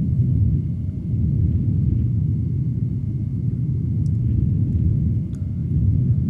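A steady, loud low rumble, with a faint steady tone above it and a few faint ticks.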